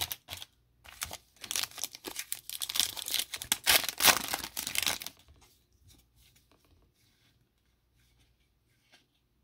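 Foil wrapper of a Panini Absolute football trading-card pack being torn open and crinkled by hand: a dense crackling for about four seconds, dying away to faint rustles as the cards come out.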